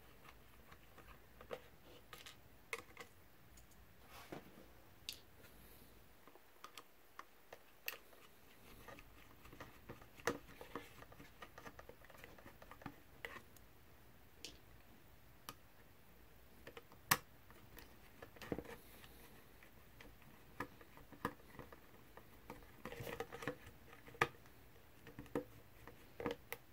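Faint, irregular small clicks and ticks of a precision 1.5 mm hex screwdriver turning out tiny screws from a drone's plastic body, with a few sharper taps as the tool or screws are handled and set down.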